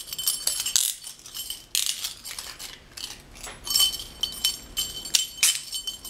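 Handcuffs and their attached metal dog tags clinking and jingling as they are handled, in several short clusters of sharp clicks with a faint high metallic ring between them.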